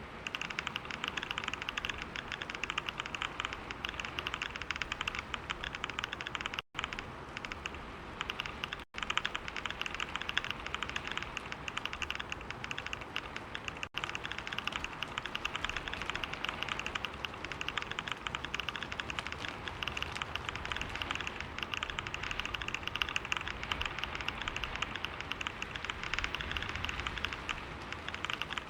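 Fast, continuous typing on a computer keyboard: a dense, unbroken stream of key clicks. The audio cuts out for a split second three times, in the first half.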